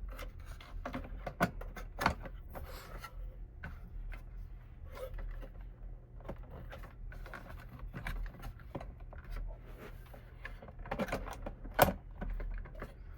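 Light clicks and knocks of a desktop PC's CPU heatsink and its screws being handled and set back in place inside the case, with one sharp, louder click near the end.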